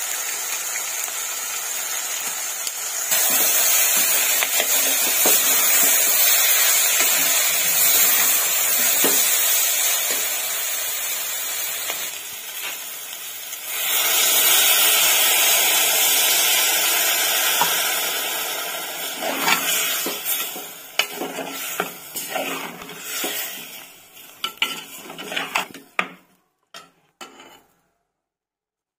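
Vegetables and masala powder sizzling in oil in an aluminium pressure-cooker pot while a steel ladle stirs and scrapes them. The sizzling gets louder about three seconds in, and near the end it gives way to separate clinks of the ladle against the pot before stopping.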